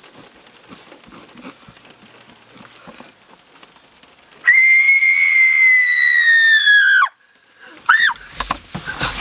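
A person screams: one long, high-pitched scream that slowly falls in pitch for about two and a half seconds and cuts off suddenly, followed about a second later by a short, rising-and-falling cry.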